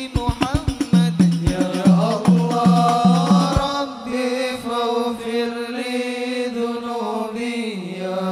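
Sholawat qiyam, a devotional Islamic chant, sung by voices in unison over a fast beat of hand-drum strokes. The drums stop about halfway through, leaving long held sung notes.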